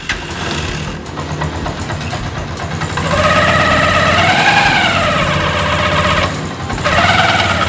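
Honda TMX 125 single-cylinder engine running in gear with the brake held, so the engine is under load. From about three seconds in, a loud whining hum from the transmission rises in pitch and falls again, and returns briefly near the end. The owner says this hum comes only under load and not in neutral, and he is hunting for the fault in the transmission.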